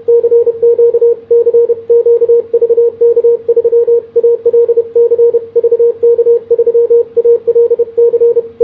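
Morse code sidetone from a ham transceiver, keyed at about 33 words per minute with a Begali Sculpture iambic CW paddle. A single steady mid-pitched beep is switched rapidly on and off in dots and dashes, with only short gaps between characters.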